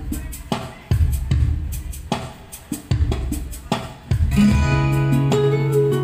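Band music: heavy drum hits about once a second, then from about four seconds in a held low bass note with sustained higher notes over it.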